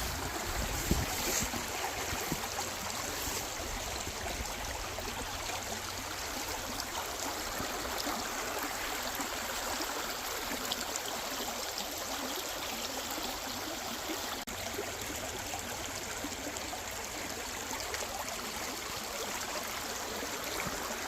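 Creek water running over rocks, a steady even rush.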